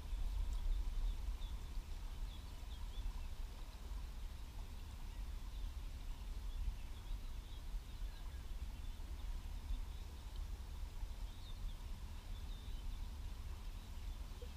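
Low, fluctuating rumble of wind on the microphone, with faint, scattered high chirps of small birds.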